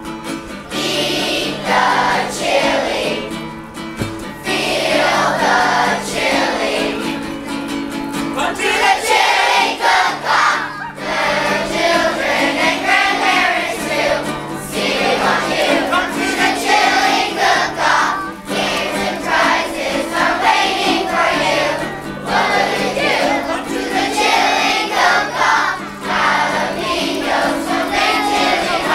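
Background music: a song with singing voices over held accompaniment notes.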